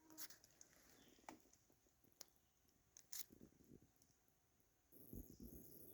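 Near silence with a few faint, sharp clicks; about five seconds in, a low rustling and a steady high hiss start.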